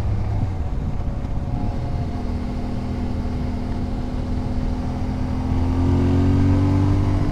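Motorcycle engine running under way with wind rushing over a helmet-mounted boom mic. The engine note rises a little and gets louder about five and a half seconds in.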